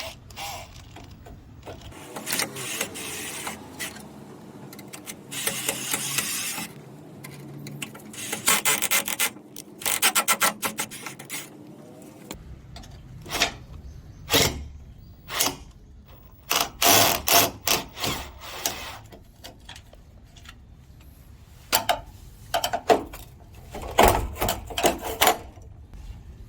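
Hand-tool work on the door hardware: bursts of rasping, rubbing strokes, including a quick run of repeated strokes, followed by scattered sharp clicks and knocks.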